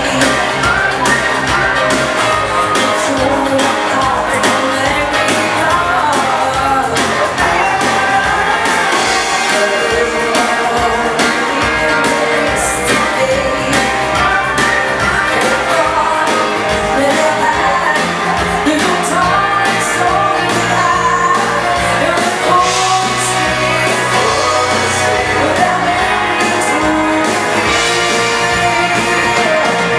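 Live dansband playing an upbeat bugg dance tune: electric guitars and a steady drum beat under sung vocals.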